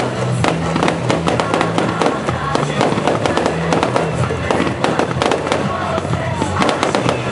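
Fireworks bursting and crackling in rapid, dense succession, many sharp bangs overlapping, over music played for a music-synchronised fireworks display.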